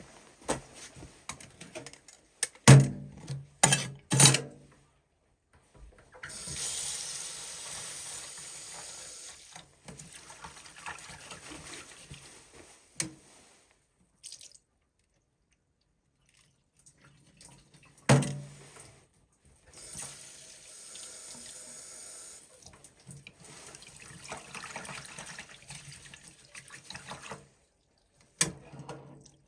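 Water running steadily from a tap or spout into a container, in two pours, with a few sharp knocks from handling the gear before each pour.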